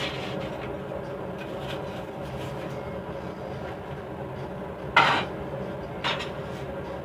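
Steady mechanical hum from a running motor, with two sharp metal clanks about five and six seconds in, the first louder.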